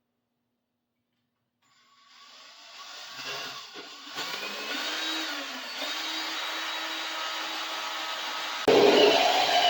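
A small power-tool motor whining, fading in after a moment of silence and then running steadily. Near the end it jumps suddenly louder and its pitch starts to waver.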